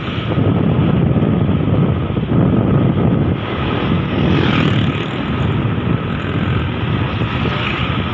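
Motorbike engine running at a steady cruise, mixed with wind rushing over the microphone, as the bike rides along. About halfway through, an oncoming motorbike passes.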